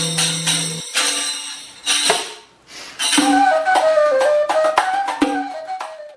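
Instrumental background music with sharp percussion hits. A melodic line enters about three seconds in, and the music stops abruptly at the end.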